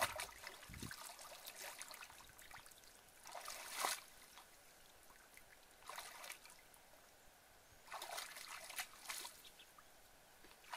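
Shallow muddy pond water splashing and dribbling in about four short bursts as it is stirred by hand and by wading legs.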